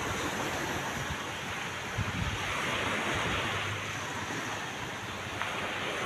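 Surf washing on a beach, swelling briefly about halfway through, with wind gusting against the microphone.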